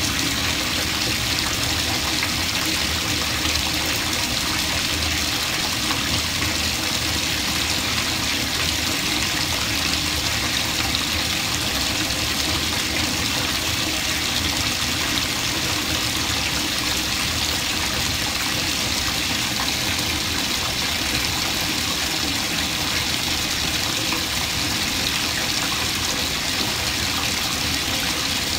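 Bathtub tap running steadily, its stream pouring into a tub of water covered in thick foam as the bath fills.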